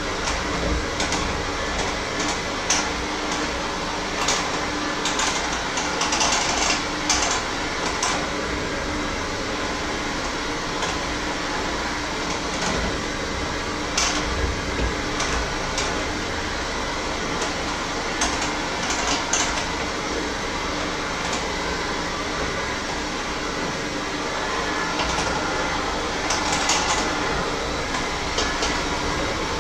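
Scattered clinks and knocks of bowls and utensils being handled, over a steady mechanical hum.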